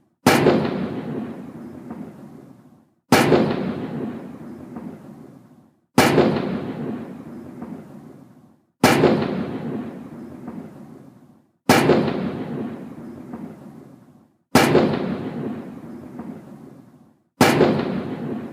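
Cannon of a 21-gun salute firing single booming shots, seven of them, evenly spaced about three seconds apart. Each shot is followed by a long rumbling echo that fades out before the next.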